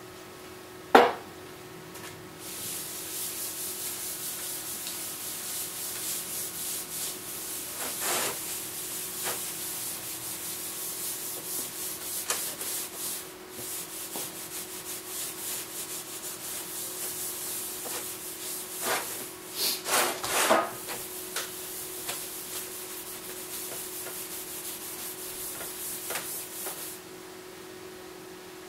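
A rag wiping a flat sheet-metal panel with lacquer thinner, a steady hissy rubbing with a few louder strokes that stops near the end, cleaning the oils off the bare metal before paint. A sharp knock about a second in is the loudest sound, and a faint steady hum runs underneath.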